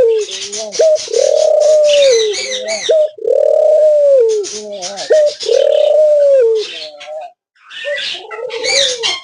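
Dove cooing: long, low, arched coos repeated about every two seconds, with higher chirping from other small birds over them.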